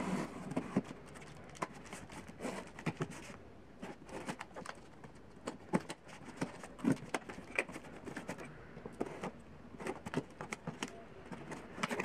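Scissors cutting the packing tape on a cardboard box, with scattered clicks, scrapes and crackles of cardboard being handled, and its flaps pulled open near the end.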